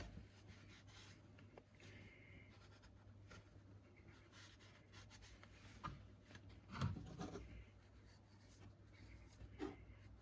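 Faint rubbing of a cloth rag wiping the oil filter housing on the underside of the engine, with a low steady hum beneath and a soft bump about seven seconds in.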